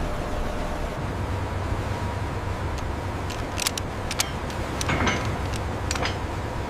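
Steady low engine rumble of a ship under way, with a scattering of sharp clicks and knocks in the second half.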